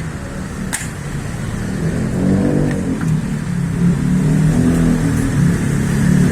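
A motor vehicle engine running, its low hum wavering in pitch and growing louder from about two seconds in. A single sharp click sounds just under a second in.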